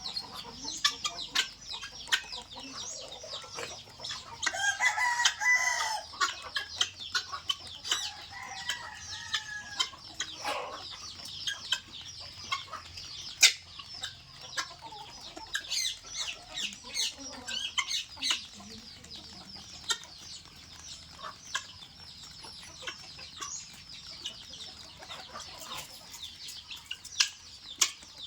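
A flock of guinea fowl feeding, with a continuous stream of short, high chirps and many sharp clicks. About five seconds in comes one louder, longer call.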